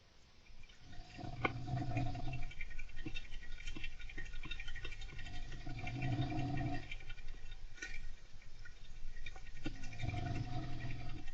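A person snoring slowly and gently: three snores about four seconds apart. Under them runs a hamster's scratching and rustling, with small clicks throughout.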